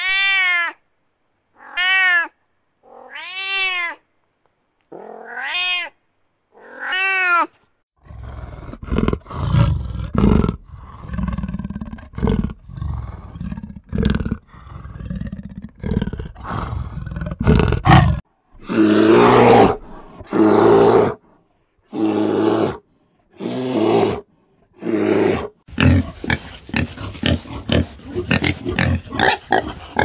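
A domestic cat meowing five times, about a second and a half apart. Then a black panther growls and snarls, ending in a string of loud rasping calls about a second and a half apart. Near the end, a collared peccary (javelina) gives rapid short grunts.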